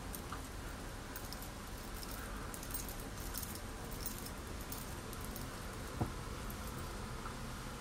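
Makeup sponge dabbing foundation onto the cheek: faint soft pats and ticks over a steady background hiss. A single sharp click comes about six seconds in.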